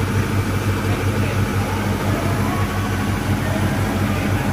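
An engine running steadily at idle: a low, even hum with a fast, regular pulse.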